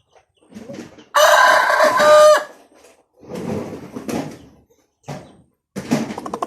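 A six-month-old gamefowl stag (young rooster) gives one short, raspy crow about a second in, lasting just over a second, followed by quieter scattered sounds.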